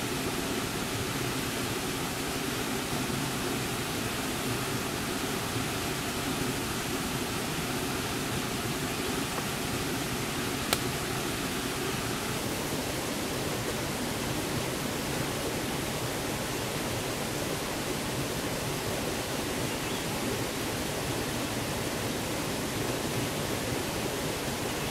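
Steady rushing noise with no pitch, with one sharp click about eleven seconds in.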